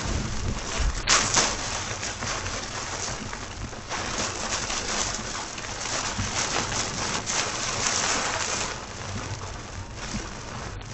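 Torrential rain pounding on the car's windshield and roof, heard from inside the cabin, swelling and easing with the gusts and loudest about a second in.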